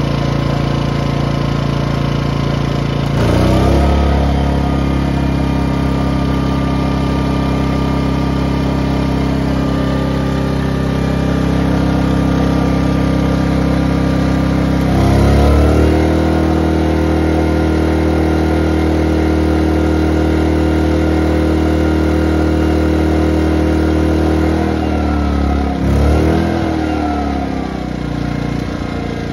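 Ryobi RYi2300 inverter generator's single-cylinder four-stroke engine running under load from a 1500-watt space heater. Its speed steps up about three seconds in and again about fifteen seconds in, then drops back near the end with a brief rev on the way down.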